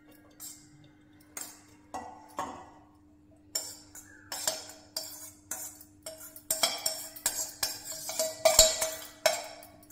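Stainless steel bowls clinking and clanking as food is scraped and tapped out of one bowl into another: a few light knocks at first, then from about three and a half seconds in a quick run of sharp metallic clanks, each with a short ringing tone.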